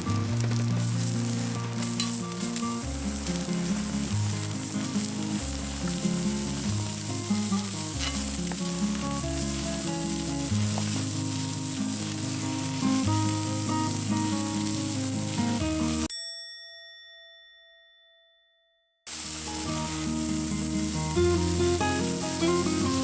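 Offal (horumon) sizzling as it cooks in a pan, with background music playing over it. About 16 s in, both fade out to a brief silence, then start again about three seconds later.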